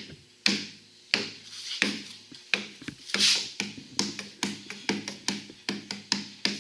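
Knuckles knocking on a Sing Core door panel, a long series of sharp raps that sound solid, spaced out at first and then coming quicker. A brief rubbing sound about three seconds in.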